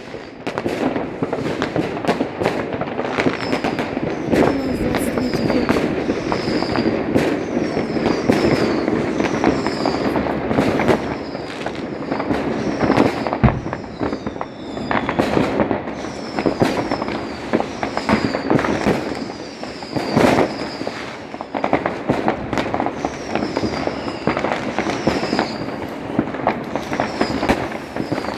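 Fireworks going off: a dense run of bangs and crackling, with short high whistles that fall in pitch every second or two. Louder bangs come about halfway through and again a little later.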